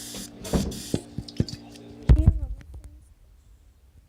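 Sticky homemade glue slime being stirred in a bowl: wet squelches and clacks of the mixing utensil, loudest about two seconds in.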